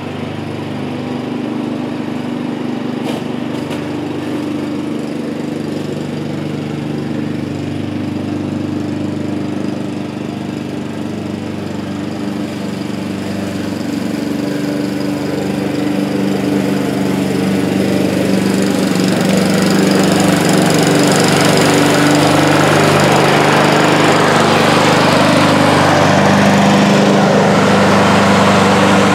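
Honda self-propelled walk-behind lawn mower's four-stroke engine running steadily, growing louder about halfway through as the mower comes close.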